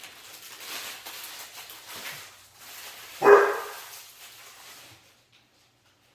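A dog barks once, loud and short, about three seconds in, over a hissy rustling that stops near the five-second mark.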